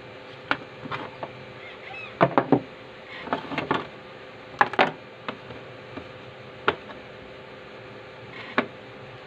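Scattered small clicks and knocks of multimeter test probes, alligator clips and wires being handled and set down on a wooden workbench, a few in quick clusters, over a faint steady hum.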